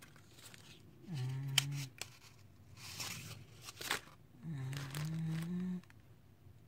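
Scattered clicks and rustles of packaging and paper being handled, with a man's voice humming two short, low, wordless murmurs.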